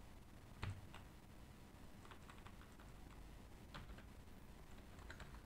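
Faint, scattered computer keyboard keystrokes, a few clicks at a time, the loudest one under a second in.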